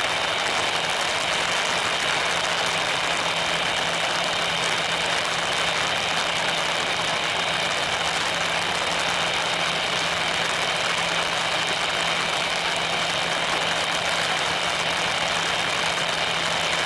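Airbus A320's CFM56 jet engines at idle thrust as the airliner taxis: a steady whine over a broad hiss, unchanging throughout.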